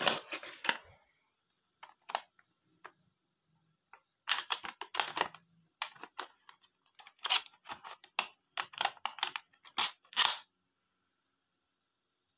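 Small plastic toy cutlery clicking and clattering as it is handled and pulled from its packaging, with some crinkling of the clear plastic tray, in short bursts separated by pauses.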